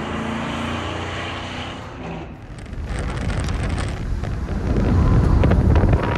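1968 Ford LTD's 390 V8 running under power at track speed, heard first from trackside as the car goes by. About two seconds in it switches to inside the cabin, where the engine's low rumble and wind noise build to their loudest near the end.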